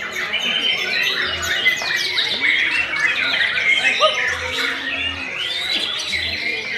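Several white-rumped shamas singing at once, a dense, unbroken mix of loud whistles, rapid trills and chattering phrases overlapping one another.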